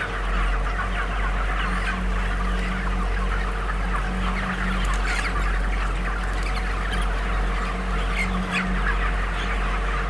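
Dense, continuous chorus of cheeping and clucking from a shed of tens of thousands of young broiler chickens, a few weeks old, over a steady low hum.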